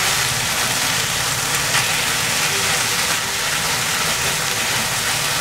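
Pork and green pepper stir-fry sizzling steadily in a wok as it is stirred, over a low steady hum.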